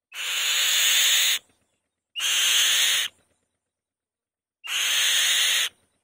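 Female kite at the nest giving three loud, harsh, rasping screeches, each about a second long, with silence between them.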